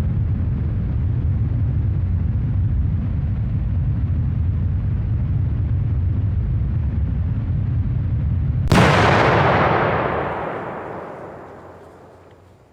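A steady deep rumble, then one sudden explosion about two-thirds of the way through, whose boom fades away over several seconds.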